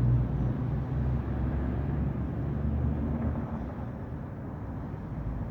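Low, steady hum of a running vehicle engine, with outdoor background noise.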